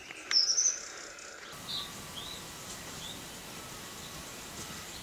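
Bird chirps: a quick run of high chirps about half a second in, then a few fainter single chirps over a steady background hiss.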